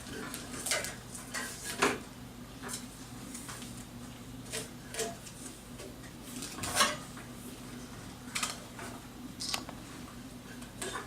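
Handling noises at a bandsaw: scattered light clicks and knocks, the loudest about two seconds in and again near seven seconds, over a steady low hum.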